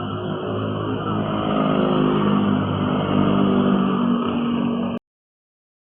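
A vehicle engine running steadily, getting a little louder about a second in, then the sound cuts off abruptly about five seconds in.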